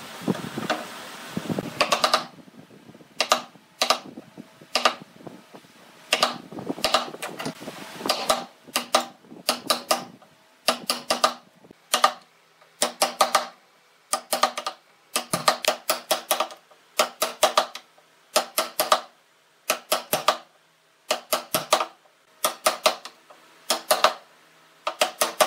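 Wooden mallet striking a wood-handled chisel to chop a mortise in a pale wooden chair frame clamped to the bench. Sharp knocks come in quick groups of two to five with short pauses between the groups, starting about two seconds in.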